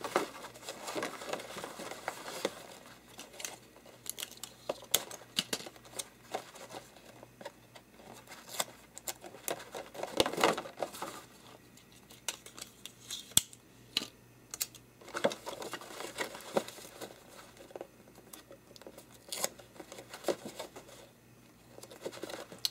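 White posterboard being folded and creased by hand into a box: irregular papery rustles, crinkles and light taps as the sides are pushed up and the corner flaps pressed together.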